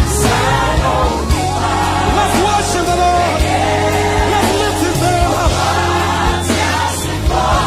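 Live gospel music: a man singing lead in Twi over a band with drum kit and keyboards, with a choir behind him.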